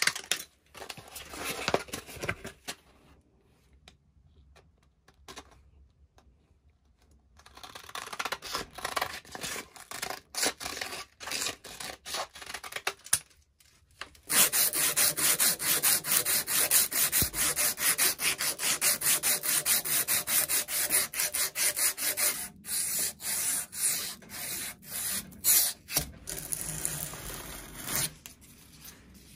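Scissors snipping sandpaper. Then, from about halfway, a long run of rapid, even back-and-forth rubbing strokes: a strip of abrasive paper pulled shoeshine-style around a round steel pin clamped in a vise.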